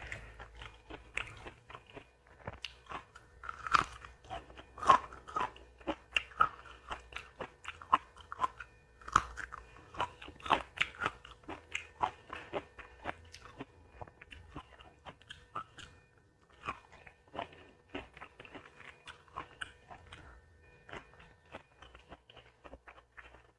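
Close-miked chewing and biting of a meal of catfish, rice and raw vegetables: many sharp crunches and mouth clicks, busiest in the first half and thinning out around the middle.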